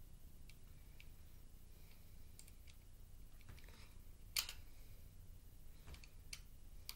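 Faint, scattered small clicks of a knife tip working at the hinge of a metal eyeglass frame, with one sharper click about four and a half seconds in.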